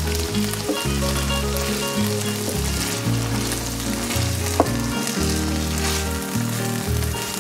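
Minced meat with tomato sauce sizzling in a hot frying pan as a wooden spatula stirs it, with one sharp click about four and a half seconds in. Background music with low sustained notes plays underneath.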